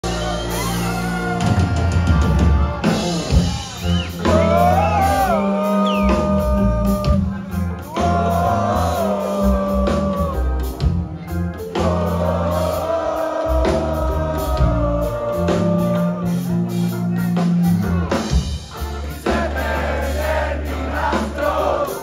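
Live rock band playing: electric guitars, bass, drums and keyboard, with a male voice singing long, sliding lines over the band.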